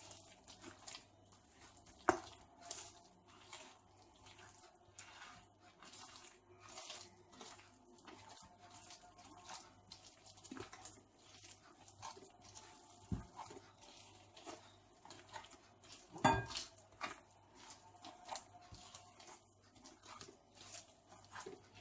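Wet batter of creamed butter, sugar, oil and eggs being stirred by hand in a bowl: a quick, continuous run of small squelching clicks and scrapes, with a sharper knock of the utensil against the bowl about two seconds in and again around sixteen seconds.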